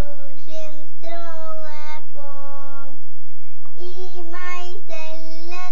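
A young child singing a tune unaccompanied: a string of steady held notes with short breaks between them.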